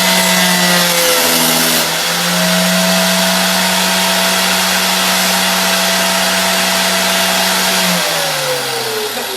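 Electric grinder running with a steady hum and a hiss of steel being ground, a hook-tool blank held against it; its pitch dips briefly as the steel is pressed in. About eight seconds in it is switched off, and the hum falls in pitch as it winds down.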